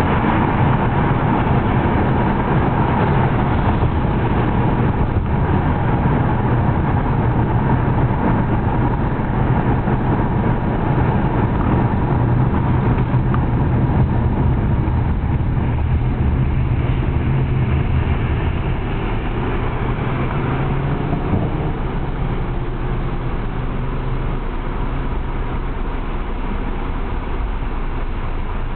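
Car engine and road noise heard from inside the cabin while driving, easing off about two-thirds of the way through as the car slows to a stop in traffic.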